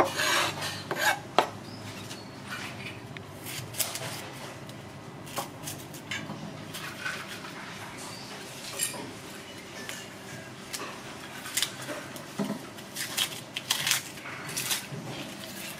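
A cleaver chopping on a plastic cutting board, a few strokes in the first second or so, then scattered light clicks and scrapes of a knife blade working on an onion, over steady background hiss.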